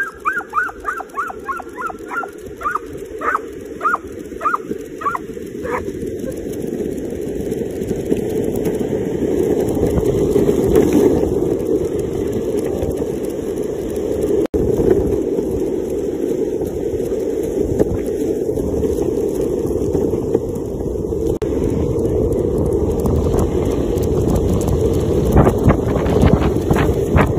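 An excited dog yipping over and over, about two high cries a second, for the first few seconds; then the steady rolling noise of skateboard wheels on asphalt, mixed with wind on the microphone, as the dog pulls the rider along.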